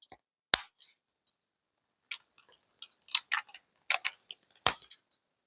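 Scattered light clicks and taps: one sharp click about half a second in, then an irregular run of clicks from about two seconds on, the loudest near the end.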